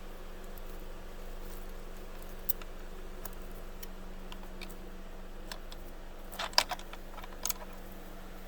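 Faint metallic clicks and taps of the steering wheel's center nut and socket being worked off by hand, with a short cluster of sharper clicks about six and a half seconds in, over a steady low hum.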